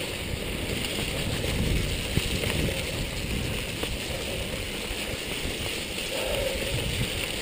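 Mountain bike rolling down a dirt and gravel track: a steady rushing noise of wind on the microphone and tyres on the ground, with a few light rattles from the bike.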